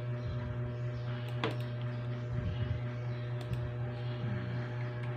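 Steady low electrical hum with a few scattered light clicks and taps, one sharper click about a second and a half in.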